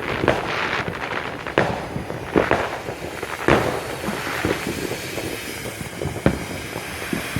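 Consumer firework going off: a continuous hissing crackle punctuated by sharp pops at irregular intervals, roughly once a second.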